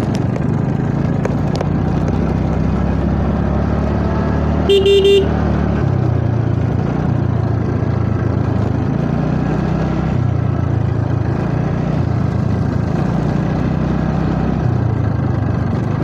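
Motor scooter running steadily under way, with engine, road and wind noise on the microphone; a vehicle horn toots once, briefly, about five seconds in.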